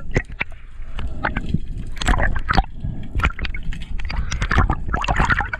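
Water sloshing and gurgling with bubbles, heard underwater just below the surface, with many sharp clicks and crackles.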